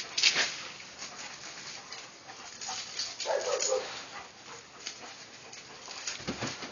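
A dog whimpers briefly about three seconds in, among scattered soft rustling noises.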